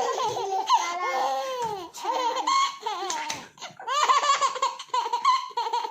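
A baby laughing, high-pitched and in repeated bouts, with short pauses about two seconds and three and a half seconds in.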